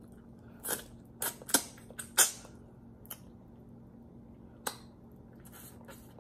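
Mouth sounds of eating oxtail with the fingers: a cluster of sharp wet smacks and clicks of lips and tongue in the first few seconds, then one more near the middle, as meat is sucked and chewed off the bone.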